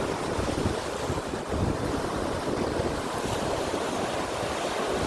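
Rough surf washing onto a beach in strong wind, with wind buffeting the microphone.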